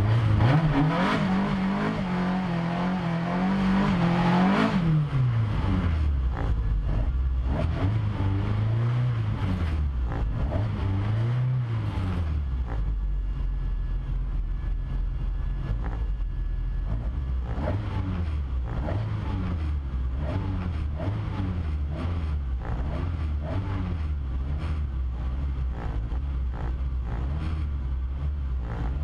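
Race car's engine heard from inside the cabin while the car stands still, held at raised revs for the first few seconds and then dropping. Two short throttle blips follow a few seconds later, then it idles with a slightly wavering note.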